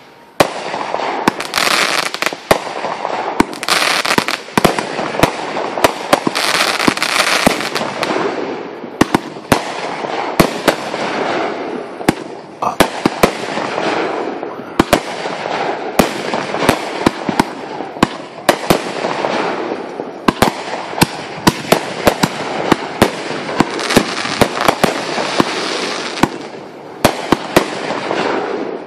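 Aerial fireworks going off in quick succession: dozens of sharp bangs and pops over loud crackling hiss. The first bang comes just after the start and the barrage keeps on to the end.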